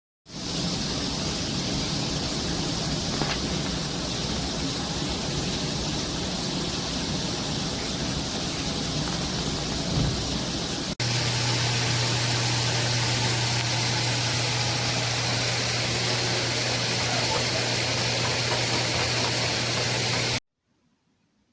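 Water spraying steadily from a rain shower head, an even hiss. About halfway through it cuts to a second stretch of spray with a steady low hum under it. It stops abruptly near the end.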